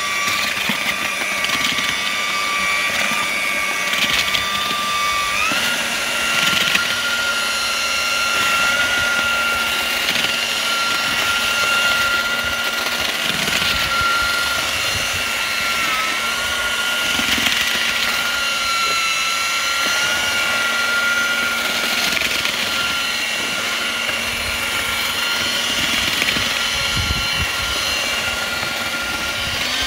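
Eibenstock twin-paddle electric mortar mixer running steadily while its paddles churn hot-mixed lime mortar in a galvanised dustbin. Its motor whine rises a step in pitch about five seconds in and dips briefly near the middle.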